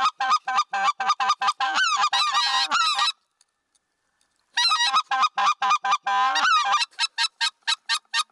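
Mouth-blown goose calls imitating greater white-fronted geese, worked in rapid runs of short yelps and clucks to draw a passing flock. One run goes on for about three seconds, there is a pause of about a second and a half, then a second run follows.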